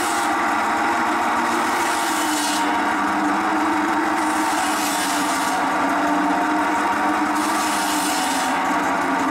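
Belt-driven circular saw bench running steadily, its blade biting into branch wood several times, with a rasping hiss that swells with each cut about every two to three seconds.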